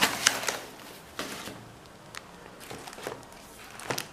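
Foam-sheet and paper packing wrap rustling and crinkling as it is pulled off a parcel and the comic books inside are handled, in irregular crackly rustles, loudest at the start with a sharp crackle near the end.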